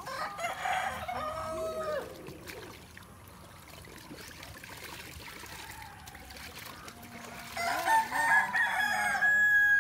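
A rooster crowing twice: one crow at the start and a louder one near the end that finishes on a long held note.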